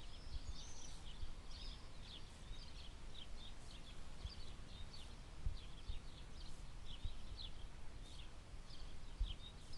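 Chicken pieces searing in hot ghee in a pot, sizzling with a scatter of small, irregular crackles as they brown before being turned.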